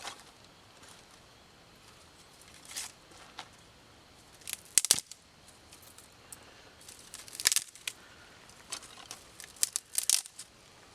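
Dry sticks and brush being gathered and snapped by hand for a campfire: a series of short snaps, crackles and rustles at uneven intervals, the loudest about five and seven and a half seconds in.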